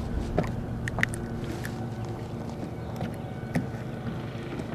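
Wind-driven chop slapping against the hull of a bass boat, with a steady low hum and a few light clicks and taps.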